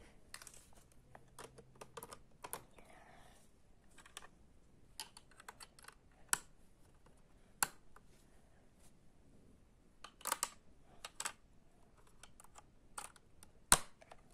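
Scattered small clicks and taps at irregular intervals, with a few sharper snaps, from plastic parts of a snap-together electronics kit being handled and fitted.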